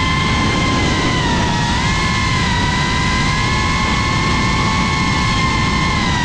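FPV quadcopter's brushless motors and propellers whining at a steady, high pitch that dips slightly with throttle changes, over a low rushing noise of wind.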